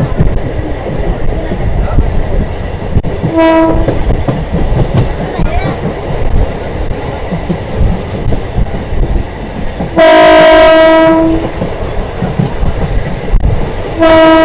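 Diesel multiple unit train running at speed with steady track and wind noise, heard from an open coach window. Its horn sounds three times: a short blast about three seconds in, a long, loud blast of about a second and a half near the ten-second mark, and another starting near the end.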